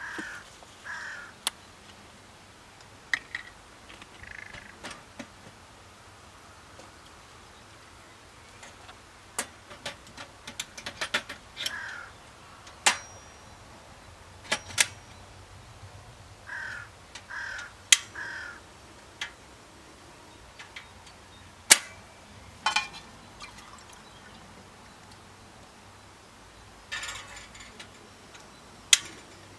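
A crow cawing in short groups of two or three calls, with sharp clicks and snaps scattered among them.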